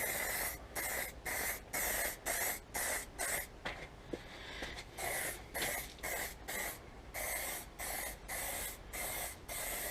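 Aerosol spray can of clear lacquer hissing in short passes, about two bursts a second with a brief pause about four seconds in, as a clear top coat goes onto a motorcycle panel.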